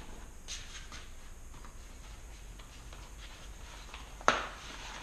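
A zip tie snapped through by a bicycle cable and housing cutter: one sharp snap about four seconds in, with faint handling noise before it.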